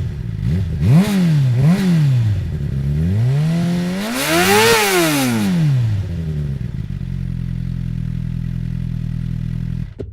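Suzuki GSX-R 750 L5's inline-four engine through an Akrapovic carbon exhaust, blipped twice about a second apart, then revved higher and longer around the middle before dropping back to a steady idle.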